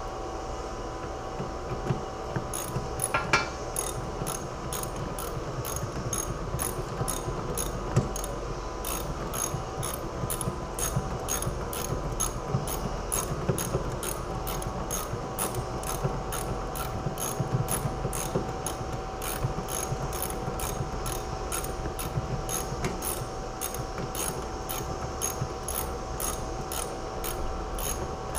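Socket ratchet wrench clicking in a steady, even run of about two to three clicks a second as a bolt is turned.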